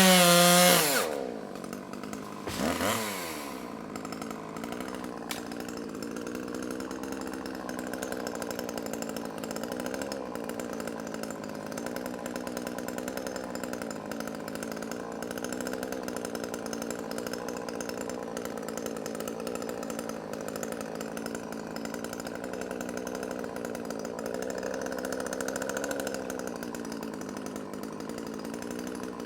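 Chainsaw revved hard, dropping back about a second in, with a short rev near three seconds, then running steadily at low speed, swelling slightly near the end.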